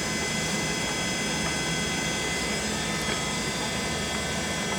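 LeBlond 4025NK heavy-duty gap lathe running under power with a steady gear whine over a low hum, while the cross slide is power-fed.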